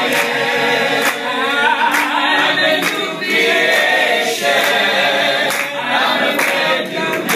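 Small mixed group of men and women singing together a cappella, with hand claps roughly once a second.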